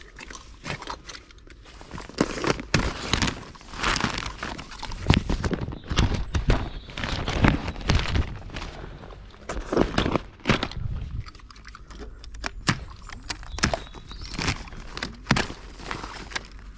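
Irregular thumps, footsteps and rustling of plastic pallet wrap close to the microphone, as someone clambers over wrapped pallets of bagged fertiliser; near the end a knife is put to the plastic film.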